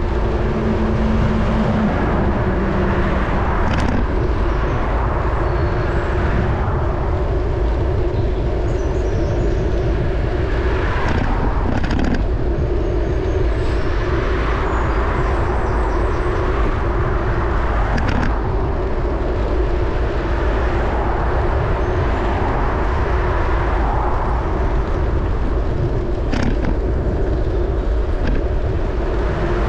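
Steady wind rumble on a bike-mounted camera's microphone, mixed with road noise as the bicycle rides along, and motor traffic passing. A few short knocks, likely bumps in the road, come at intervals.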